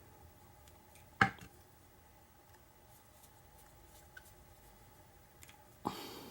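Two sharp clacks of a Medeco lock cylinder and tools being handled on a bench, one about a second in and a louder-tailed one near the end, with faint small ticks between.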